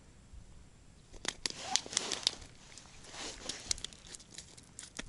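A freshly caught perch flopping on wet ice: a run of sharp taps, slaps and crackles from about one second in until nearly four seconds, then quieter.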